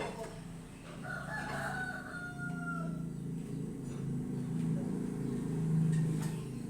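A rooster crowing once, a single call lasting about two seconds, over a steady low hum.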